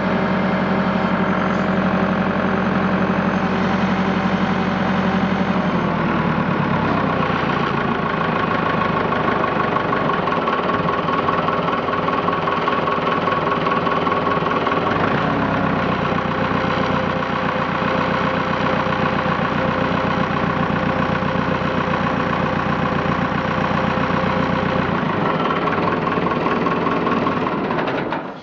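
Massey Ferguson 275's four-cylinder diesel engine running steadily after a cold start. Its note changes about six seconds in, and it is shut off near the end, the sound dying away quickly.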